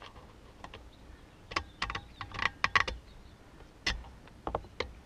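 Sharp clicks and light knocks of hard plastic parts being handled and pried at on a Honda string trimmer's engine while it is taken apart, coming in irregular clusters from about a second and a half in.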